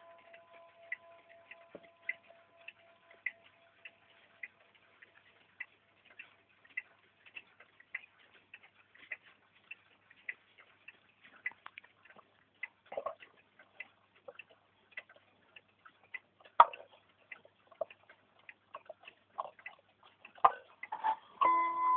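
Mechanical movement of a 1960s rope-hung wall clock ticking with a steady tick-tock, as a ringing tone fades away in the first few seconds. From about halfway through, a few louder knocks come in among the ticks, and just before the end the clock starts to strike on its coiled gong.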